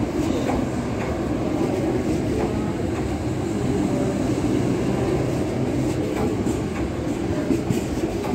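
LNER Azuma express train running past along the platform: a steady rumble of wheels on rail with light, irregular clicks.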